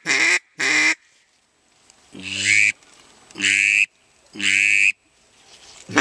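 Sean Mann Drakon drake-duck call blown by mouth: two short notes at the start, then after a pause three longer, buzzy notes with a high whistle in them, about a second apart. It imitates drake calls, used to lure wary ducks that shy away from hen mallard calls.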